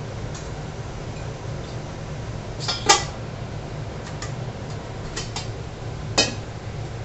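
Stainless steel containers and a lid knocking and clinking as they are handled: a few sharp metal knocks, the loudest about three seconds in and another about six seconds in, over a steady low hum.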